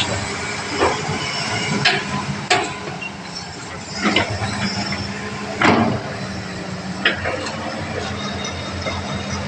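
Hitachi ZX200 hydraulic excavator's diesel engine running steadily, with six sharp knocks at irregular intervals of a second or more; the loudest comes a little past halfway.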